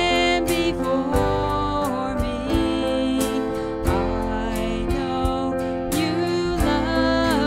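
Live worship band playing: a woman sings the lead melody over acoustic guitar, electric bass, keyboard and a drum kit, with regular drum hits.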